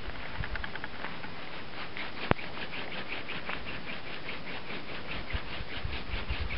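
Hand-drill fire by friction: a wooden spindle spun between the palms, its tip rubbing in the hearth board's notch with a rhythmic scratching of about five strokes a second, working toward an ember. One sharp click about two seconds in.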